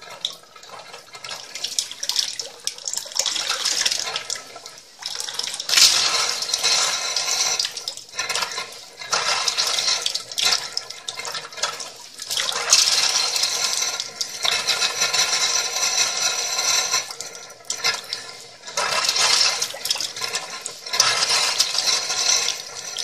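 Water tap running and making a loud snoring, growling noise: a rough pitched drone over rushing water that swells and drops away in irregular surges.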